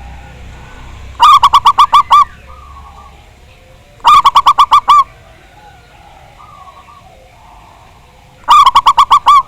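Zebra dove (perkutut) cooing: three loud bouts, each a quick run of about eight pulsed coo notes lasting about a second, with fainter coos from other doves between them.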